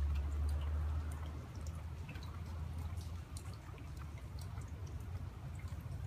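Water dripping in scattered, irregular drops over a low steady rumble that is strongest in the first second.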